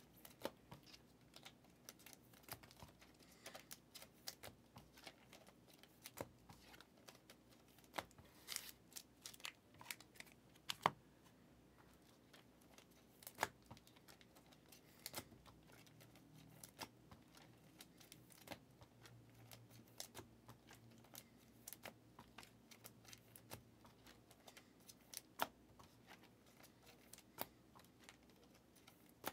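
Quiet, irregular clicks and light taps of sports trading cards being handled, flipped and set down into stacks on a table.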